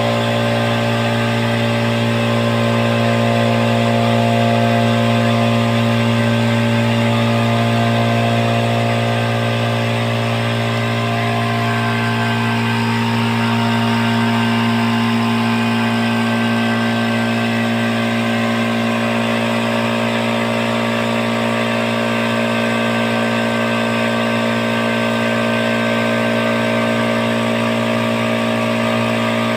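Oil-less electric air compressor running steadily under load, pumping up its tank with a loud, even hum.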